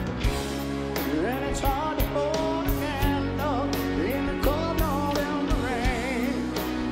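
Live rock band playing, with grand piano and drums under a lead melody line that slides up into its notes and wavers with vibrato from about a second in.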